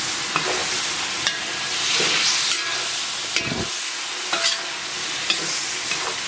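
Chicken and pork belly sizzling in a hot wok while a metal spatula stirs and tosses them. The spatula scrapes and clicks against the wok about once a second.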